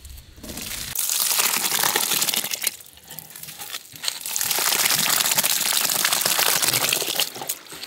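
Masses of tiny live river fish (ayira meen) being tipped from steel plates into a bamboo basket: a dense wet crackling of thousands of small fish slithering and flicking, in two long pours with a short lull between.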